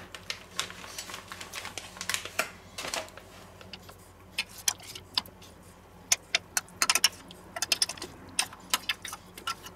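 Irregular light clicks and clinks from handling marinated pork steaks, with more of them toward the end: a plastic vacuum bag being handled and a stainless steel bowl of marinade with a spoon in it.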